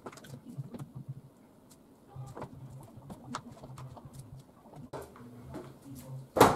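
Clicks and light knocks of a new double-glazed casement window sash being handled and adjusted in its frame, with one sharp knock about six and a half seconds in.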